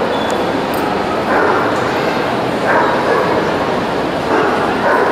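Dogs barking and yelping across a large, busy exhibition hall, over a steady din of crowd chatter, the barking swelling in bouts every second or so.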